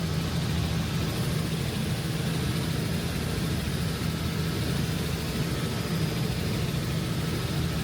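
Helicopter in flight heard from inside the cabin: a steady, unbroken low drone of engine and rotor.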